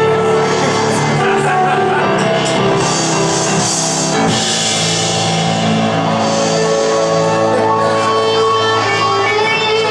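Live band playing a loud, steady instrumental rock passage with guitar and drums.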